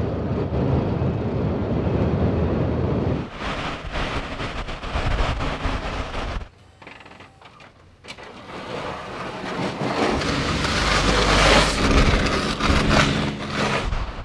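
Vehicle noise: a low rumble, then a quieter gap about halfway through, then a truck engine and a scraping hiss growing louder, from a snowplow truck pushing snow. The sound changes abruptly a few times.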